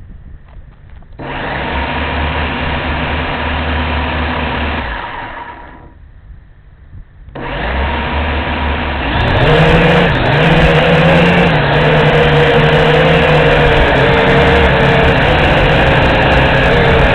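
JXD 509G quadcopter's electric motors and propellers whirring with a steady pitched whine. It starts about a second in, dies away around five seconds, starts again at about seven seconds and runs louder from about nine and a half seconds.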